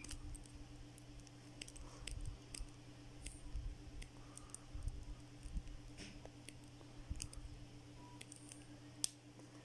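Faint, scattered small metallic clicks and ticks from split-ring pliers and a steel split ring as the ring is worked open and turned around a fishing jig's eye to fit the hook.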